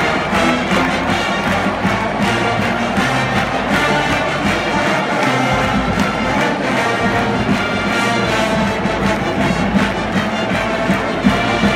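A marching band's brass section playing loudly and continuously in a stadium.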